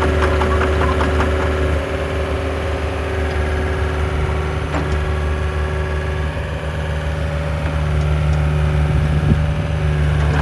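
Volvo EC55B midi excavator's diesel engine running steadily at idle. It eases slightly about two seconds in and picks up again near the end.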